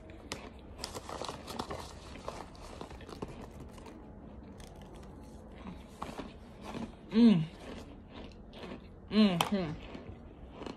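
Crinkling and crackling of a clear plastic bag of powdered starch being handled and shaken, then two short hummed vocal sounds with falling pitch, about two seconds apart, which are the loudest sounds.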